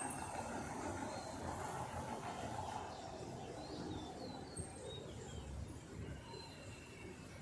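Distant city traffic noise heard from high above the road, with a few short bird chirps about four seconds in.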